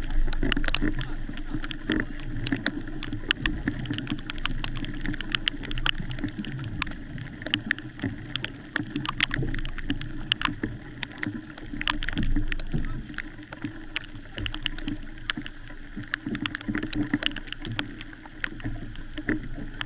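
Water splashing and sloshing around an outrigger canoe under way, with many short sharp taps scattered throughout.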